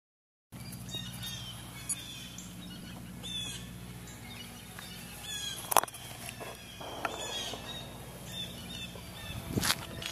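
Wild birds chirping and singing over a low steady hum, with two sharp knocks, one about halfway through and one near the end.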